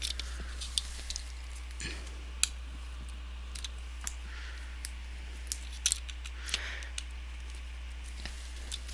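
Plastic clips of a Samsung 700Z3A laptop's screen cover clicking as gloved hands press the cover back into place, with scattered sharp clicks and soft rustling. The loudest clicks come about two and a half seconds in and a little before six seconds.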